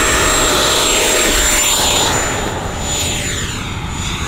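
RC F-18 Super Hornet model jet's motor whining steadily at high throttle as it takes off. From about two seconds in the whine grows a little fainter and takes on a sweeping, shifting sound as the plane flies away.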